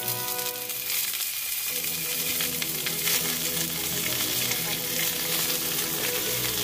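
Chicken leg quarter frying skin side down in hot olive oil in a frying pan: a steady sizzle and spatter of the oil.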